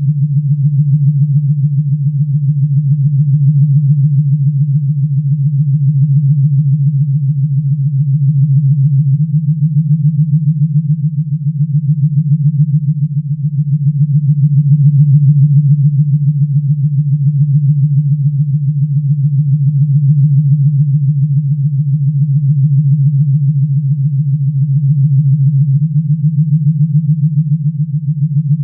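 Low, steady synthesized hum of a Star Trek sound effect, the kind used as a starship's ambient drone, with a fast fine flutter and slow gentle swells in loudness.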